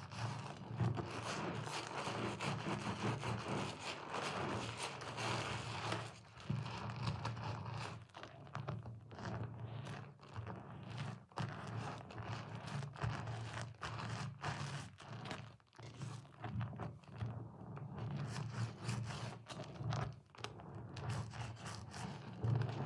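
Hands squeezing and rubbing a soap-soaked sponge in thick lather: a dense, continuous run of small wet crackles with a couple of short lulls.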